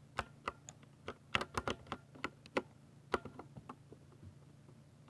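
Typing on a Ducky 60% mechanical keyboard with silver switches: a quick, uneven run of key clacks for the first three and a half seconds or so, then the typing stops.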